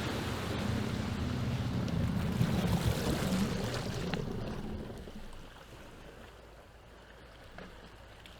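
Two-stroke jet ski engine running, then fading away over about five seconds. Faint water and wind noise remains.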